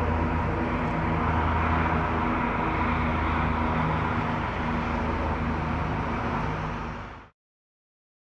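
Jet engines of a departing twin-engine airliner at climb power, a steady rumble with held engine tones as it climbs away. The sound cuts off suddenly about seven seconds in.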